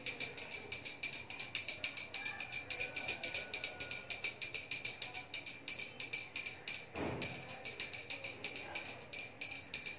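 Small pooja hand bell rung rapidly and without pause, about seven strokes a second, with a steady high ring. A dull knock sounds about seven seconds in.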